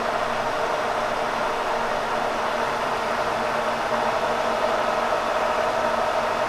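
Kearney & Trecker 307 S-12 milling machine running steadily, a hum with a hiss over it, while the table is moved about 5.7 inches into position for the cut. The level rises a little about four seconds in.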